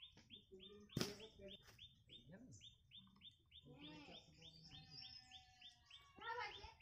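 Faint, steady bird chirping: short falling chirps repeated about four times a second. A single sharp knock about a second in.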